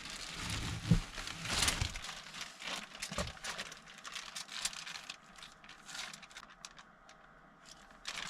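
Hands rummaging for silverware: plastic crinkling and rustling with scattered clicks and knocks, a sharp knock about a second in.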